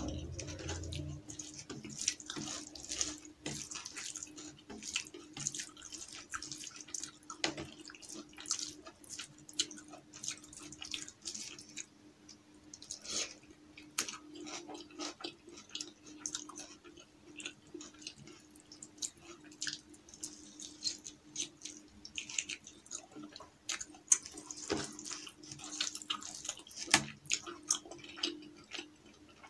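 Close-miked wet, sticky clicks and squelches of rice and dal lentils being mixed by hand and eaten with the fingers, along with chewing. A faint steady low hum runs underneath.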